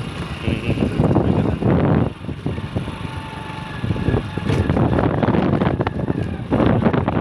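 Wind buffeting the microphone in uneven gusts, with a low rumble underneath.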